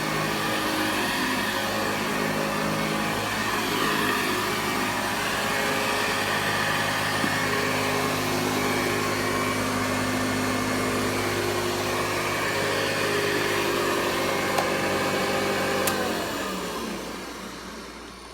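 Hoover Model 63 upright vacuum cleaner running steadily with a motor hum and airflow noise, then switched off about 16 seconds in, its motor winding down with a falling pitch as it coasts to a stop.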